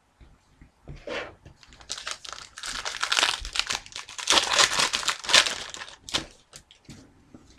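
Foil wrapper of a hockey card pack crinkling and tearing as it is opened by hand. A short rustle about a second in, then dense crinkling for about four seconds, tailing off into a few light clicks.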